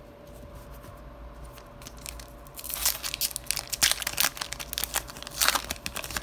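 Plastic wrapper of a Panini Contenders basketball card pack being torn open and crinkled in the hands. It starts about two and a half seconds in as a run of crackling, loudest near the end.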